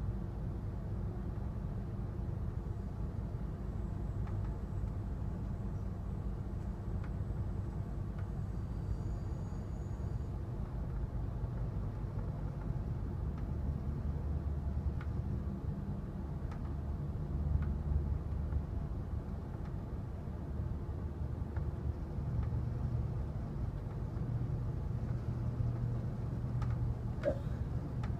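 Amtrak California Zephyr passenger train rolling along, heard from inside the car as a steady low rumble with a few faint clicks.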